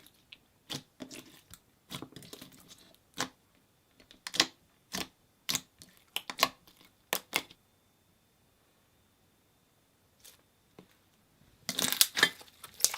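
Slime being handled, giving a run of sharp sticky clicks and pops for several seconds, then a quiet few seconds, then dense crackling near the end.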